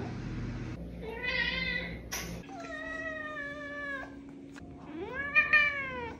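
Domestic cat meowing three times: a short meow, then a long drawn-out one, then a louder meow that rises and falls in pitch.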